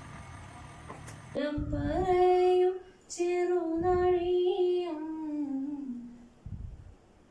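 A high voice singing two long held phrases, the second stepping down in pitch near its end.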